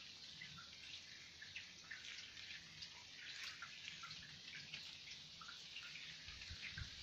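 Light, gentle rain: a faint, irregular patter of raindrops dripping and ticking, with a couple of soft low thumps near the end.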